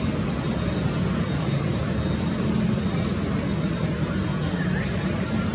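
Steady low rumble of a Boeing 747-8F freighter's four GEnx-2B turbofan engines at taxi power, mixed with general airport background noise.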